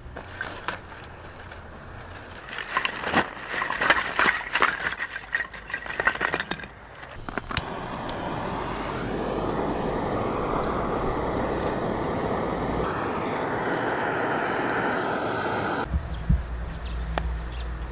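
A butane torch blowing a steady hissing flame into kindling in a metal fire box for about eight seconds, then cutting off suddenly, the fire now lit. Before it come a few seconds of light clattering and knocking, ending with a sharp click just as the flame starts.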